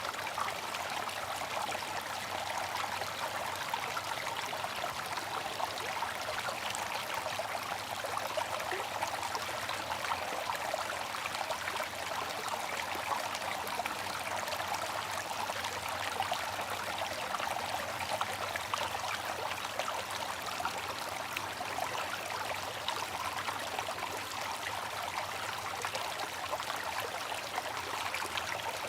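Bamboo water fountain with water trickling and splashing steadily, a constant busy patter of small drops with no knocks or pauses.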